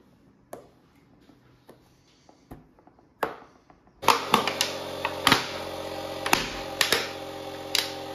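A small electric machine switches on about four seconds in and runs with a steady, even hum, with a few sharp clicks and knocks over it. Before it starts there are only a few faint clicks.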